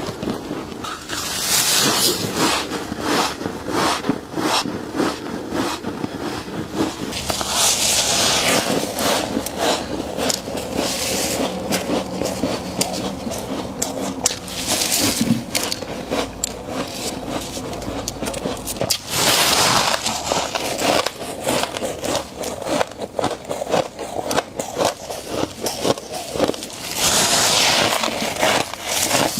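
Frost being scraped up and bitten: continuous crackly crunching, with a few louder rasping scrapes spread through.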